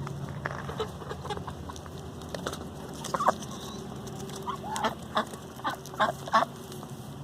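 Chickens clucking: a string of short, separate clucks, coming more often in the second half.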